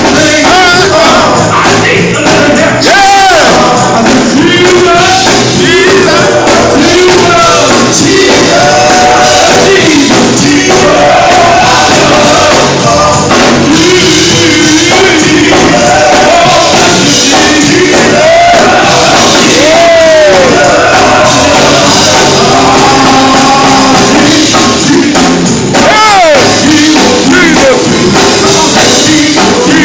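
Live gospel music: voices singing over a band with steady percussion, recorded very loud.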